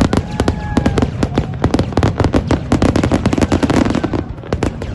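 Fireworks display: a dense, fast run of sharp crackling reports, many a second, over a steady low rumble of bursts, thinning out near the end.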